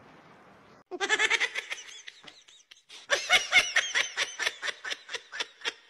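A person laughing in quick repeated bursts: a short run about a second in, then a longer run of about five or six laughs a second.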